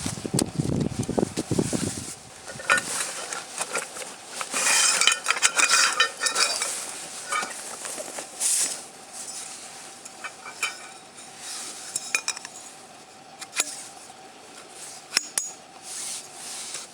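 Tableware clinking and clattering as it is handled. There is rustling at first, the clatter is busiest a few seconds in, and then come scattered single clinks.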